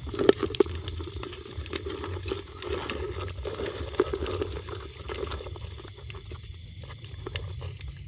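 Handling noise: irregular clicks, taps and rustling, heaviest in the first second, over a low steady hum.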